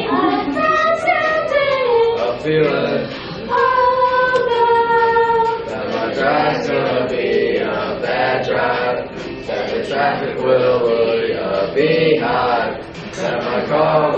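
A group of children singing a song together, with a few long held notes in the middle.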